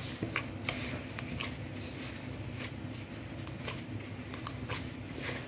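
A gloved hand squishing and kneading softened butter with sugar in a plastic bowl, rubbing them together for a streusel crumb: soft, irregular squelches and crackles.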